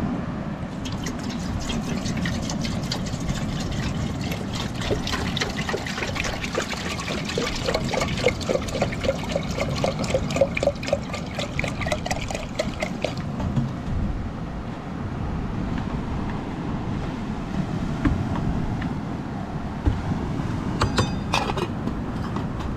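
Water poured from a plastic jug into an aluminium kettle, splashing and gurgling for about thirteen seconds before it stops. A few metallic clinks near the end as the kettle's lid is put on. Steady surf in the background.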